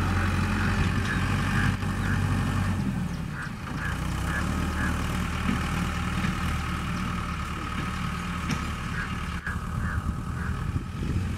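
Mahindra Arjun 555 DI tractor's four-cylinder diesel engine running steadily under load as it tows a trailer heavy with sugarcane. The engine gets a little quieter about three seconds in.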